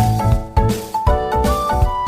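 Upbeat background music with keyboard-like notes over a steady bass beat.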